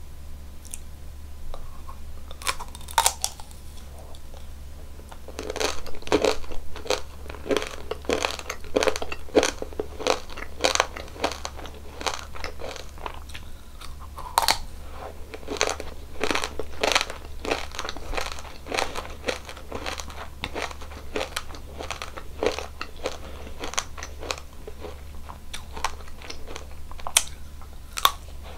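Crunching and chewing of crispy ice cream: a few sharp crackly bites about two to three seconds in, then steady, irregular crunching from about five seconds on.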